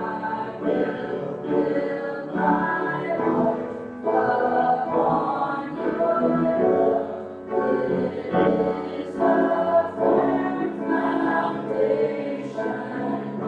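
Congregation singing a worship song together with instrumental accompaniment.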